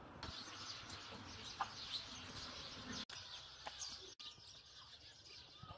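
Small birds chirping now and then over faint outdoor background noise. The sound cuts out sharply twice, about three and four seconds in.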